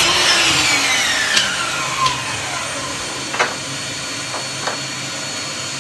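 A loud electric motor running in a workshop, its whine falling steadily in pitch as it slows, over a low steady hum, with a few light knocks.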